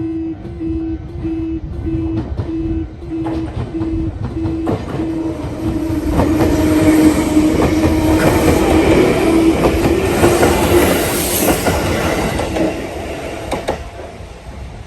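Kyosan level-crossing warning buzzer giving a low, buzzer-like beep about twice a second while an electric train passes through the station, its wheels clicking over the rail joints. The train grows loud about five seconds in, is loudest in the middle, and fades away near the end.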